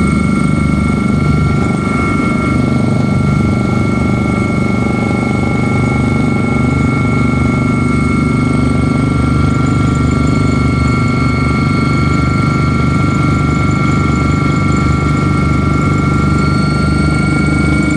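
Helicopter in flight heard from inside the cabin: a steady, loud drone of rotor and engine with a constant high whine running over a low rumble.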